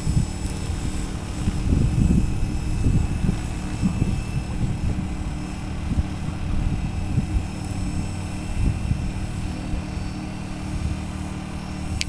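Radio-controlled model helicopter flying overhead: a steady whine from its motor and rotor blades over irregular low rumbling.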